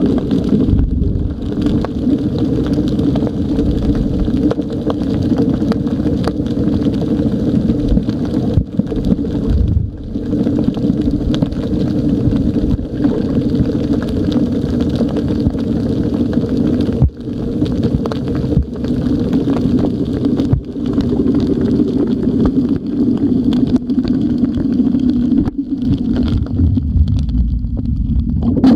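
Steady drone of a boat engine heard underwater, with a low rumble beneath it and a few brief dips in level.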